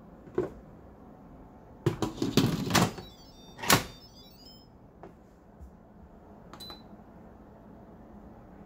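Instant Pot lid being set on the stainless steel inner pot and turned to close: a click, a quick run of clattering knocks, then one louder clunk with a short metallic ring as it seats. A few light clicks and a short beep follow.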